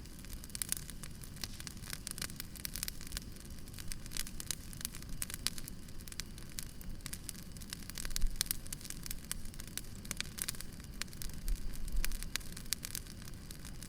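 Wood fire crackling: a dense run of small irregular pops and snaps over a steady low rumble, with a louder pop about eight seconds in.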